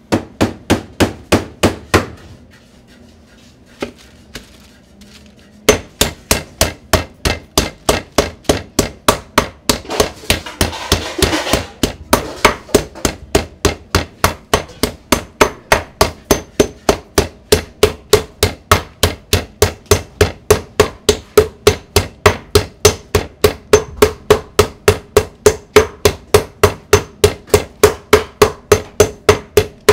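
Metal meat tenderizer mallet pounding pork cutlets flat through plastic wrap on a wooden board. A short burst of blows, a pause of a few seconds, then a long, steady run of rapid, evenly spaced strikes, about three to four a second.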